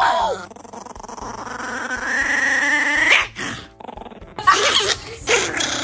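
Dog growling in one long drawn-out grumble that rises in pitch over about three seconds, then a few short, louder vocal bursts near the end.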